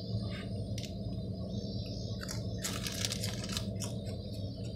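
Crinkling and crunching in short crackly spells around the middle, as wild raccoons are hand-fed snacks from a bag, over a steady low hum.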